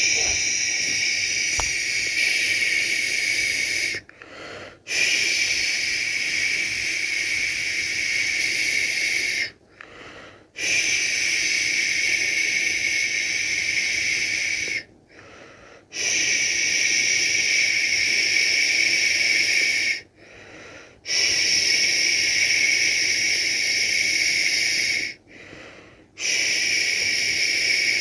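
A person making long, steady 'shhh' shushing sounds to soothe a baby to sleep, each shush lasting about four to five seconds, with a short pause for breath between them, six in all.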